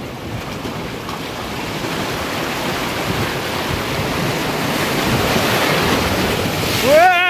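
Sea waves surging and rushing through a narrow rock channel, swelling steadily louder over several seconds. Near the end a woman gives a brief high-pitched exclamation.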